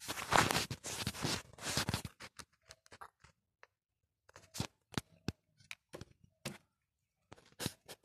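Rough rustling and scraping for about the first two seconds, then a string of short, separate clicks and scrapes, as a parrot nest box is handled and opened.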